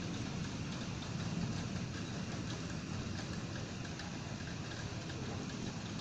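Steady rain falling in a thunderstorm: an even hiss with faint scattered drop ticks over a low, steady rumble.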